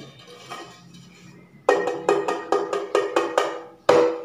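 Deep-dish square non-stick pan being tapped by hand on its base, a quick run of ringing metallic taps at about four a second that starts a couple of seconds in, pauses briefly, then resumes louder.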